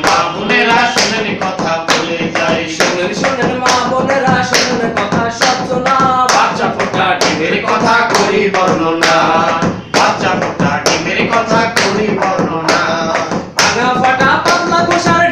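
Male voices singing a Bengali song without instruments, keeping time with hand claps and taps on a tabletop, about two beats a second.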